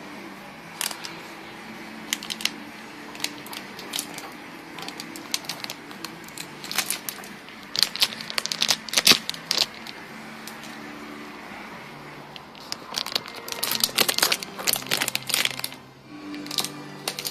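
Clear plastic shrink wrap crinkling and crackling as it is handled and pulled off a cardboard box, in scattered crackles with denser bursts about halfway through and again later on. Faint music with low steady notes underneath.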